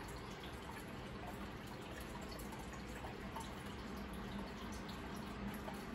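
Aquarium water bubbling and trickling steadily, with many small drips and pops, over a low steady hum.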